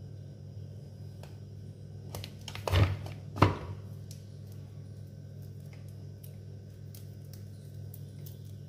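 Two sharp plastic knocks about three seconds in as the Philips hand blender's motor unit is turned on its chopper bowl, with small clicks and rustles of the power cord being handled, over a steady low hum.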